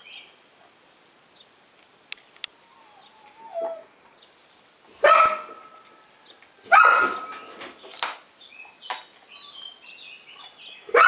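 A dog barking: three loud single barks a couple of seconds apart, about five, seven and eleven seconds in, with a softer bark between them.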